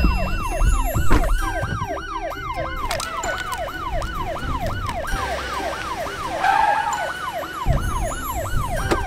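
Police-style yelp siren, its pitch sweeping quickly up and down about four times a second, over a low rumble.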